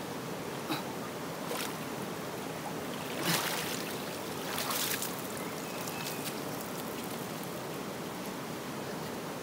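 Steady rush of running water after heavy rain. A few short, louder noises sound over it, the loudest a little over three seconds in.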